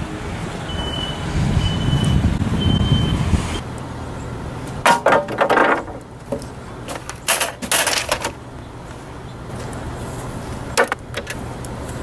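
Low rumble of vehicles with three short high beeps about a second apart; then, after a cut, two bursts of knocking and clatter and a single knock near the end, as a wooden board and hand tools are handled on a wooden picnic table.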